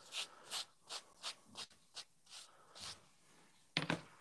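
Quick rubbing strokes of wiping by hand, about two to three a second, fading out about three seconds in, then a louder clatter of handling near the end.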